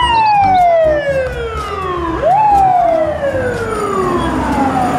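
Fire truck's mechanical siren winding down in a long falling wail, spun back up quickly just after two seconds in, then winding down again.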